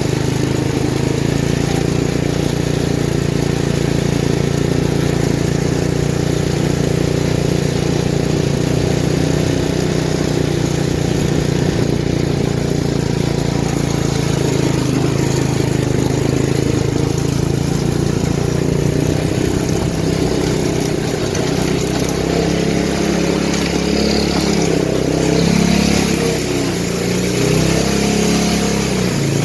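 Sears Lil' Poppy riding mower's small engine running steadily, its pitch then shifting up and down in the last several seconds as the throttle changes.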